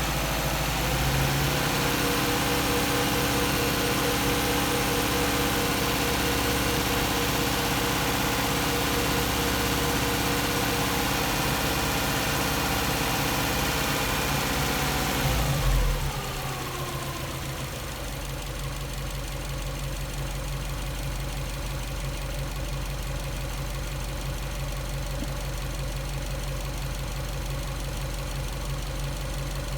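Subaru EJ207 2.0-litre turbocharged flat-four engine, warming up. About a second in it is held at slightly raised revs, then just before the middle the revs fall back and it settles to a steady, quieter idle.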